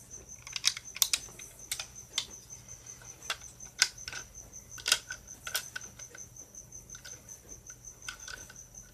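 Irregular sharp clicks and taps of plastic hard drive casing parts being handled and fitted together, the loudest about one, four and five seconds in. A steady, high, finely pulsing trill runs underneath.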